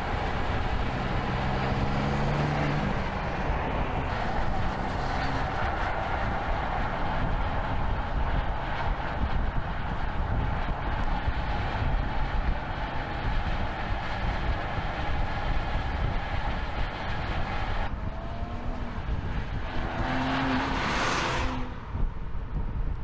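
BMW X4 M Competition (F98) driving at speed: steady tyre and road rush with its twin-turbo 3.0-litre straight-six running underneath. The engine note rises briefly in the first few seconds, and a louder rush swells near the end as the car sweeps past.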